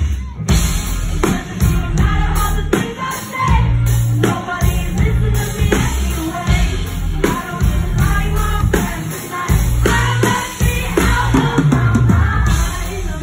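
Live pop band playing a song with a heavy pulsing bass and regular drum hits, with singing over it.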